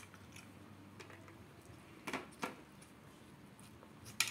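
A man chewing a mouthful of fried tempeh and rice, with three short wet mouth clicks: two close together about halfway through and one near the end.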